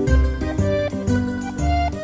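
Background music: instrumental notes over a deep, pulsing bass, with the notes changing about every half second.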